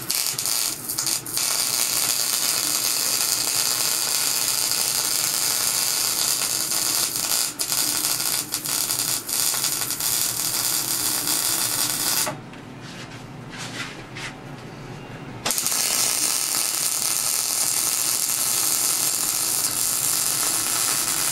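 Wire-feed (MIG) welder arc crackling steadily while a weld bead is laid on the steady rest's wheel-arm support. It stops for about three seconds a little past halfway, then strikes up again for a second bead.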